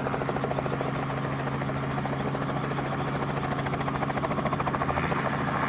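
Tour helicopter running in flight, heard from the cabin: a steady engine hum under a rapid beat of the rotor blades, which grows more pronounced near the end.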